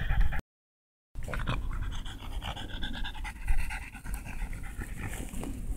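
A French bulldog panting quickly with its tongue out after exertion. The sound drops out to silence for a moment about half a second in.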